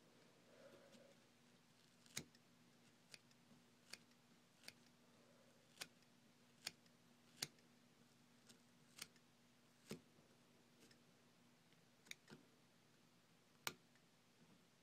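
Scissors trimming spun deer hair on a mouse fly: about a dozen sharp, separate snips at irregular intervals, roughly a second apart.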